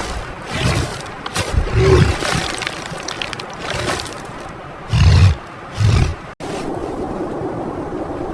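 A large animal giving a series of short, deep roars or grunts, about five in the first six seconds, before an abrupt cut to a steadier background noise.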